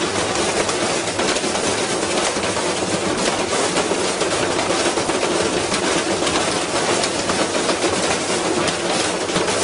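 Washing machine running with a heavy object loaded inside, rattling and clattering loudly with a dense stream of rapid knocks that never lets up.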